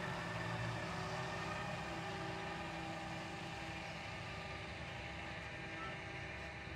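Diesel engine of a John Deere tractor pulling a slurry tanker across the field, running steadily and slowly fading as it moves away.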